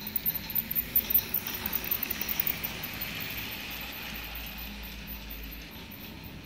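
A RailKing Classic toy steam train runs past on its plastic track. It clatters with quick irregular clicks for the first couple of seconds, then settles into a steady running rumble that fades as it moves away.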